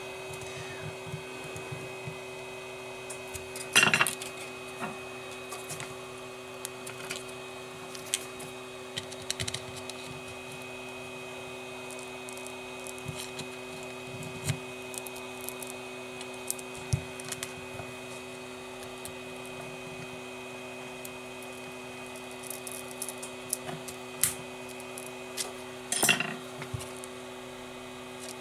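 Small clicks, scrapes and snaps of a tool and fingers prying the glued display off a smartphone's frame, with two louder snaps about four seconds in and near the end. A steady hum runs underneath.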